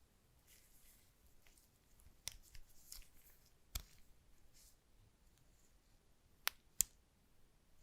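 Unboxing handling sounds: soft rustling and a few light knocks, then two sharp clicks about a third of a second apart near the end.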